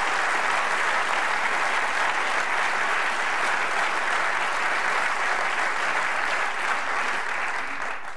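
Audience applause, a steady dense clapping that eases slightly near the end.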